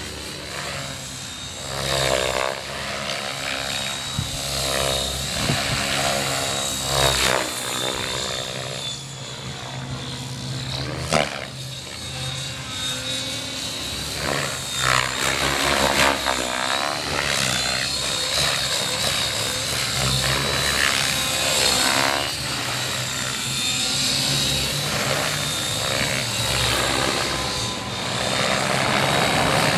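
Electric 3D RC helicopter flying aerobatics: a high motor and rotor whine with rotor chop, its pitch and loudness rising and falling as it swoops and changes direction.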